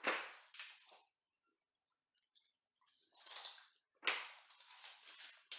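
Loose vinyl floor planks being handled, scraping and sliding against each other and the floor in three short noisy bursts: one at the start, one about three seconds in, and one from about four seconds to the end.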